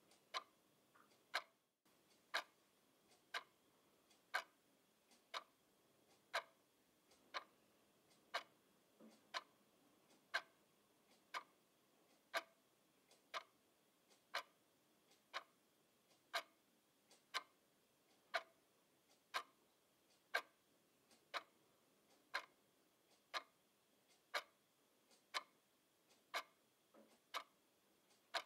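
Black twin-bell quartz alarm clock ticking steadily, about once a second.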